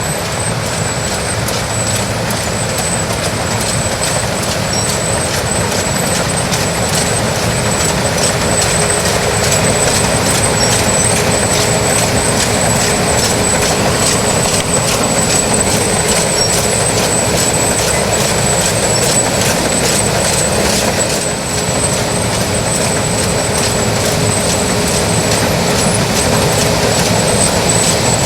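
New Holland TX68 combine harvester running, a loud steady machine noise with a high thin whine held throughout and faint regular ticking about twice a second.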